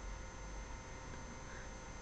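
Faint steady background noise, a hiss with a low rumble and a few thin constant tones, with no distinct event: room tone and recording noise.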